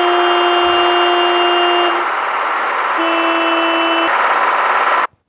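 Tractor engine running steadily while its horn is sounded in two long blasts, the first about two seconds long and the second about a second. The sound cuts off suddenly near the end.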